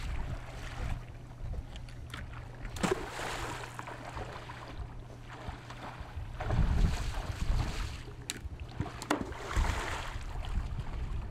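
Shallow water sloshing and splashing as a person wades through it, with wind rumbling on the microphone in a few gusts.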